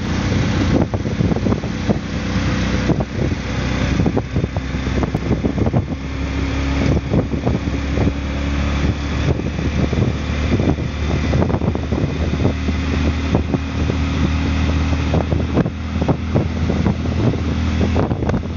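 Auto rickshaw riding along a road, heard from inside the open cab: the engine drones steadily under a rush of wind, with frequent short rattles and knocks.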